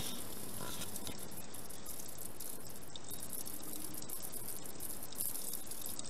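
Stone drinking fountain's spout running a steady stream of water that splashes into the stone trough below.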